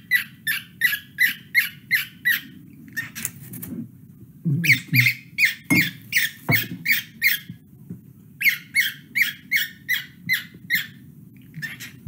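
Male cockatiel singing: runs of short, sharp whistled chirps, about three or four a second, broken by brief pauses, over a low steady hum.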